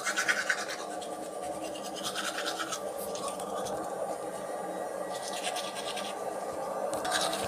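Teeth being brushed with a manual toothbrush: bristles scrubbing over the teeth in several spells of quick strokes with short pauses between.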